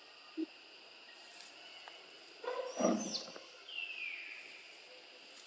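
Animal calls: a short, high squeal with a noisy rustle about halfway through, then a falling whistle-like call.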